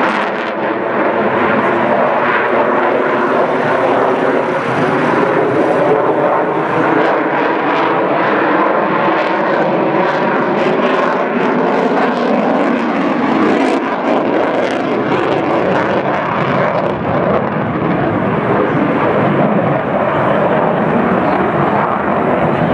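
F-22 Raptor's twin Pratt & Whitney F119 turbofans running loud as the fighter manoeuvres, with a steady jet rush and an engine tone that wavers up and down in pitch.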